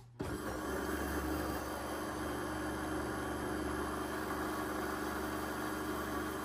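Vitamix blender motor switched on and running at a steady speed, blending a liquid batter of eggs, milk and flour.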